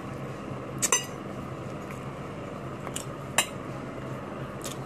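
Metal fork clinking against a ceramic bowl a few times while noodles are scooped up: a quick double clink about a second in, then two more near the three-second mark.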